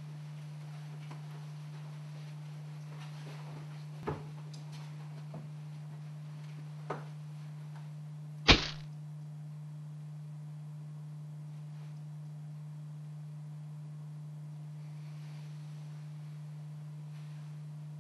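Steady low hum with a few faint knocks, then one loud, sharp hit about halfway through.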